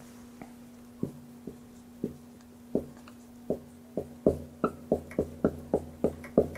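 Dry-erase marker tapping and scraping on a whiteboard as a word is written: a run of short ticks, sparse at first, then about four a second from about halfway, over a faint steady hum.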